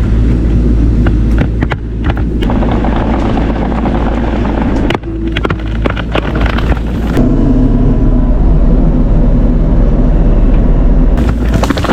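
Bobcat E42 mini excavator's diesel engine running steadily, with scattered sharp cracks and knocks; the sound changes abruptly several times.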